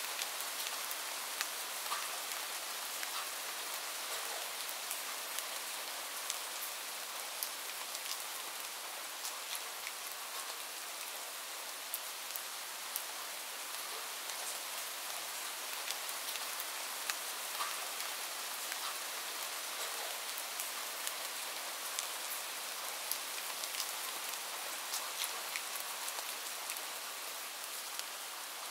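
Steady rain falling, a continuous hiss with frequent small drop ticks scattered irregularly through it.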